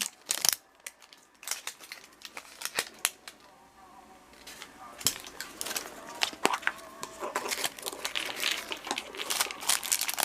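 Plastic toy packaging crinkling and tearing as it is opened by hand: scattered sharp crackles, growing denser from about halfway through.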